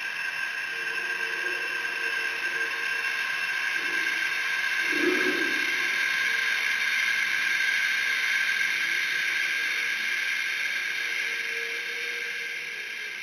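Experimental sound-art recording: a steady hissing drone with several high held tones, swelling through the middle and fading near the end.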